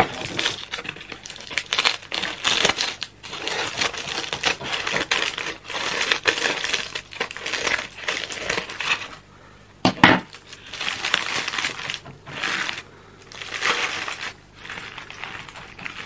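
Aluminium foil crinkling and crackling as it is cut with scissors and pulled open in bursts, with a single sharp crack about ten seconds in; near the end, baking paper rustling as it is peeled back.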